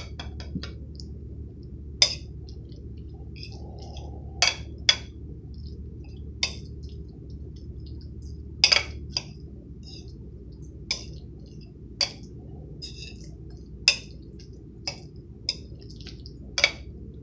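A metal knife and fork clinking and scraping against a ceramic bowl as food is stirred and mixed, about a dozen sharp, irregular clinks. A steady low hum runs underneath.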